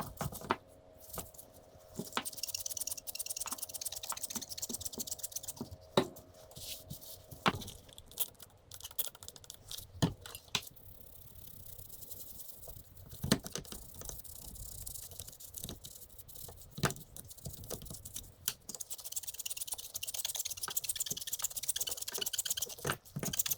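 A grimy motorcycle rear-brake part being scrubbed clean by hand, in long scraping stretches, with scattered sharp clicks and knocks as the part is handled.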